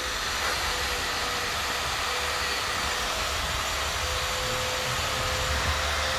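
Steady whirring machine noise with a faint constant whine and a low hum underneath.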